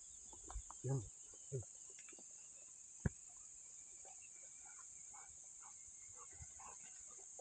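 Crickets chirring in a steady, high, even drone. A few short, faint voice sounds come in the first second or so, and a single sharp knock about three seconds in.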